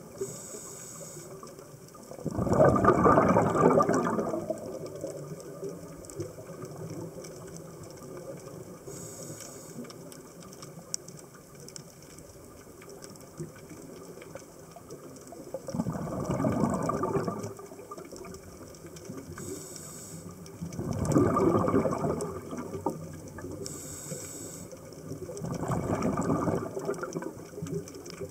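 Scuba diver's regulator underwater: four bursts of exhaled bubbles, each about two seconds long, with short faint hisses of inhalation between them.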